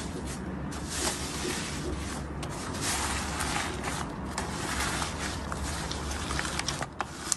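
Slime being handled and squeezed: a continuous wet squishing with many small sticky clicks and pops.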